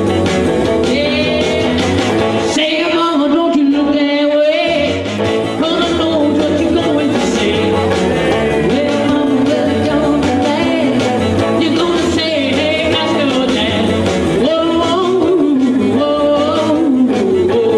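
Live rock-and-roll song: a male singer with a hollow-body electric guitar, singing and playing steadily through a PA system.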